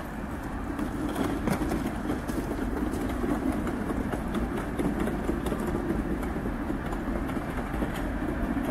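Steady low rumble of distant vehicle engines, slowly growing louder.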